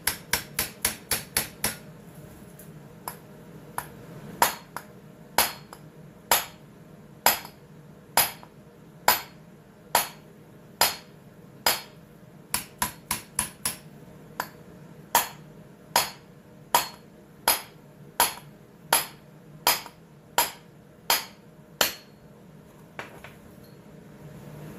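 Hammer striking the nut threaded onto the end of a chainsaw crankshaft, shocking the flywheel loose from its taper. A quick run of light taps comes first, then sharp single blows about a second apart, with a brief quicker flurry midway.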